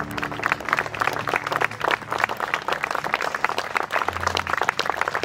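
A small crowd of guests applauding, many hands clapping in a dense, irregular patter.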